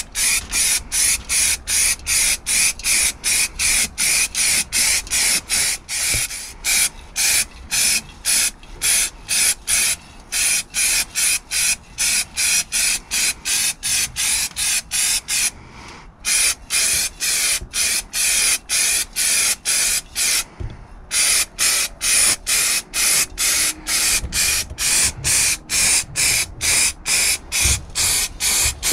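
Aerosol can of stone chip paint, fitted with a trigger handle, sprayed in rapid short hissing bursts of about two or three a second, with two brief pauses partway through.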